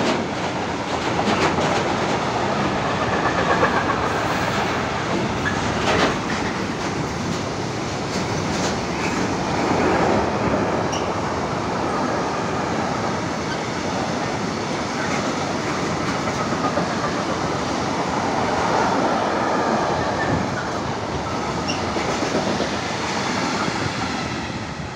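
A train running through the station without stopping, a steady loud rumble of wheels on rails with scattered clicks over the rail joints, dying away near the end.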